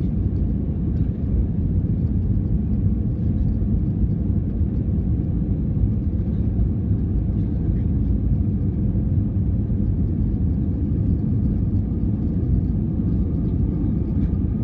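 Airbus A320 airliner during landing: a steady low rumble of engines and airflow, unchanging throughout.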